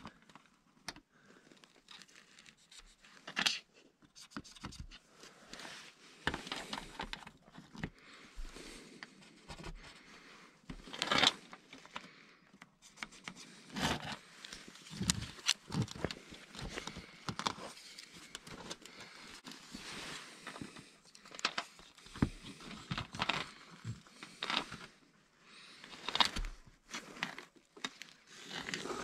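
Irregular scraping, rustling and sharp clicks of hands at work on a steel roof panel: a wooden folding rule and a marker pen handled and set against the metal, with sleeve rustle.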